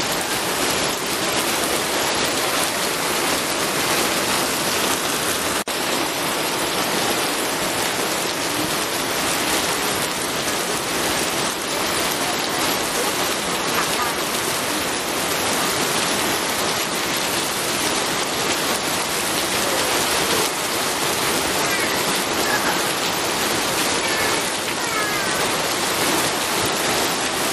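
Steady rain falling, an even dense hiss of drops, with a brief dip in level about six seconds in.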